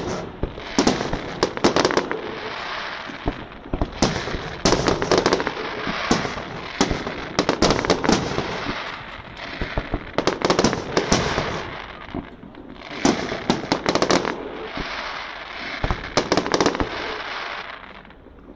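Aerial fireworks display: shells bursting in quick succession, sharp bangs over a continuous crackle, with a brief lull about twelve seconds in.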